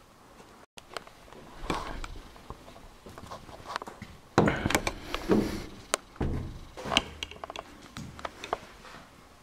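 Irregular knocks, thuds and clatter in a small room, thickest and loudest in the middle stretch and thinning out near the end.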